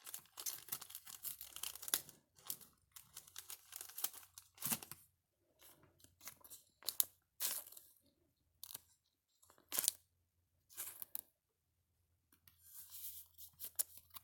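Crinkly trading-card pack wrapper being handled and torn, in irregular bursts of tearing and crinkling.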